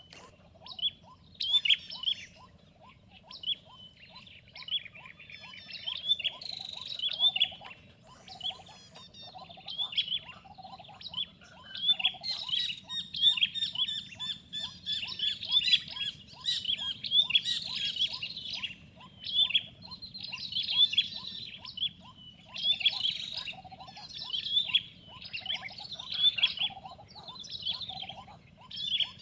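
Birds singing: short, high chirping phrases repeat every second or two over an even, quick series of lower notes.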